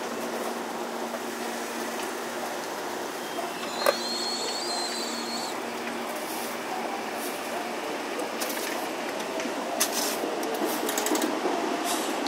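Commuter train at a station platform: a steady hum under background rail and street noise, with a sharp click and a short high squeal about four seconds in. From about eight seconds in, a slowly rising whine and quickening clicks of wheels over the rail joints as the train gets moving.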